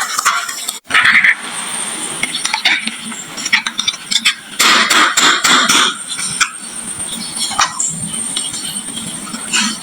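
Marbles clattering and clicking against each other and the wood as they run down a wooden marble-run slope and drop into toy trucks, in a dense stream of rattles.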